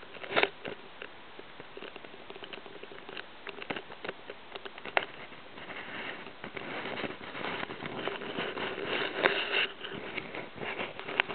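Irregular crackling and pattering of water lapping and splashing against a small inflatable boat's hull, with rustling noise on the microphone and a faint steady hum underneath; the pattering gets busier and louder in the second half.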